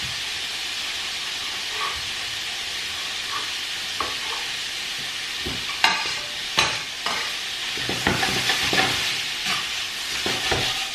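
Chopped pork sausage and onion sizzling steadily as they fry in a little oil in a frying pan. From about six seconds in come sharp knocks and scrapes as a knife taps garlic off into the pan and the pan is moved.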